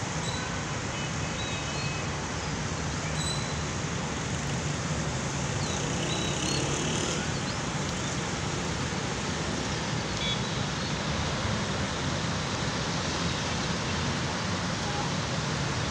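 Steady hiss of rainfall mixed with cars driving on a wet road, with a low traffic rumble underneath. A few faint high chirps sound over it in the first half.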